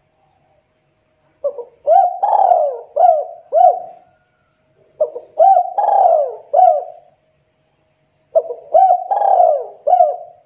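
Spotted dove (tekukur) cooing: three phrases of about five notes each, a couple of seconds apart.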